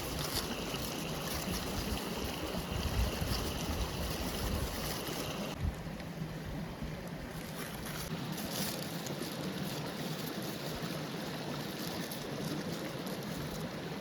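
Forest stream rushing steadily, with a low wind rumble on the microphone for the first five seconds or so. The sound changes abruptly about five and a half seconds in, then settles into a softer, even flow.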